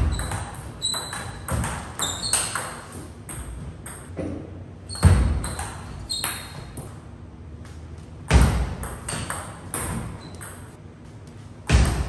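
Table tennis rallies: a plastic ball clicking sharply off paddles and the table in quick strings of hits, with a few louder, heavier thuds about every three to four seconds.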